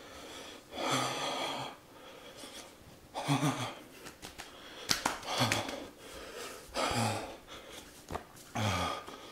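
A man's heavy breaths blown out through the mouth, about five of them, one every one and a half to two seconds, each starting with a short low voiced sound. It is a reaction to the mouth burn from the Paqui One Chip Challenge chip. A sharp click is heard about five seconds in.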